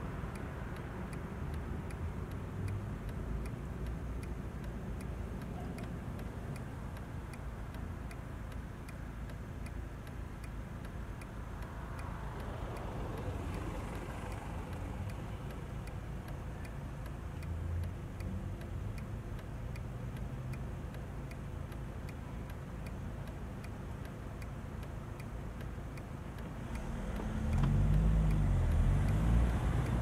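Car engine idling, heard from inside the cabin, with a light regular ticking; about 27 seconds in the engine note rises as the car pulls away.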